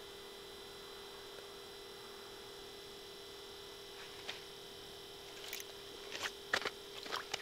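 Steady electronic hum of two tones, one low and one high. About four seconds in, scattered clicks and rustling handling noise begin and grow busier toward the end.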